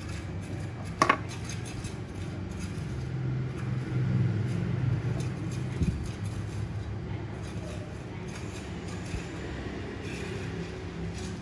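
Steady low background rumble, with a sharp double click about a second in and a softer knock near six seconds.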